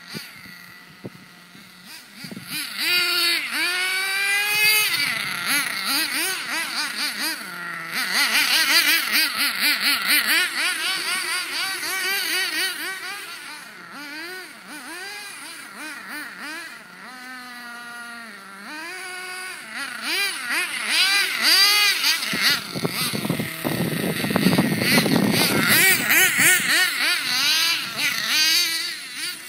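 Nitro engine of a Redcat Aftershock 3.5 RC monster truck revving up and down in repeated throttle blips, loud in long stretches and quieter in between. A small child's voice is heard at times.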